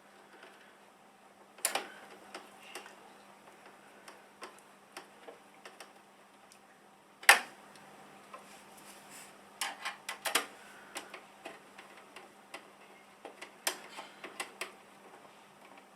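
Irregular sharp metallic clicks and ticks of screws being driven in with a screwdriver to fasten the graphics card's bracket inside a Mac Pro tower. Louder knocks come about 2, 7, 10 and 14 seconds in, over a faint steady hum.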